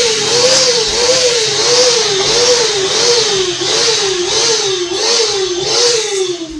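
Vacuum cleaner motor running loudly, its pitch rising and falling about every two-thirds of a second, then winding down near the end.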